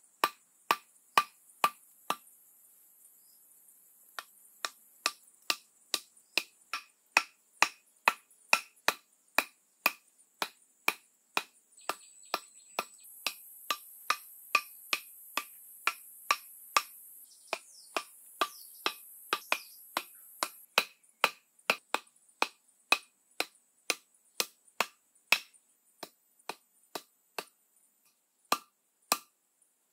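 Wooden club driving thin bamboo stakes into the ground: a steady run of sharp knocks, about two to three blows a second, with a break of about two seconds soon after the start.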